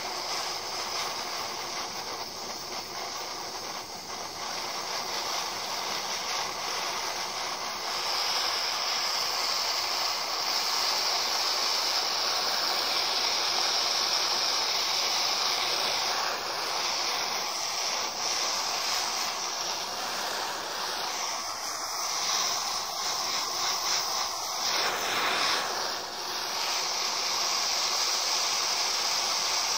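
Gas blowtorch flame burning with a steady hiss, growing louder about eight seconds in and wavering briefly a few seconds before the end.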